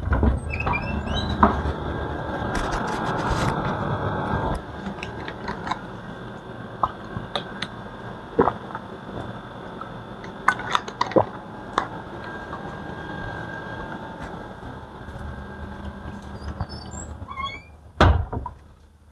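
Steady room noise, louder for the first four and a half seconds and then dropping abruptly, with scattered clicks and knocks, a few short high chirps, and a heavy thump about a second before the end.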